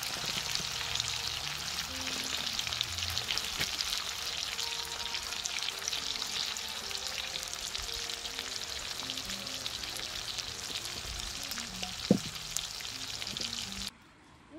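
Pork, kimchi and garlic cloves frying on a round griddle pan over a portable gas burner: a steady crackling sizzle full of fine pops. One sharp click comes about twelve seconds in, and the sizzle cuts off suddenly just before the end.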